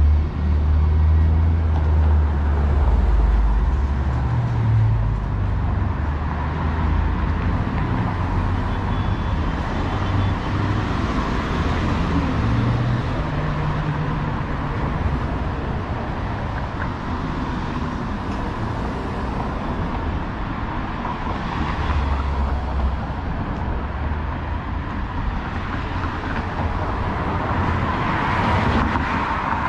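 City street traffic: a steady wash of passing vehicles, with a heavy low rumble from a large vehicle loudest in the first few seconds.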